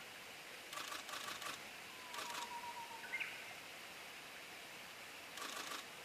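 Camera shutters firing in rapid continuous-shooting bursts: three runs of quick clicks, each under a second long, over a steady background hiss. A faint, brief whistle-like tone comes a little after the middle.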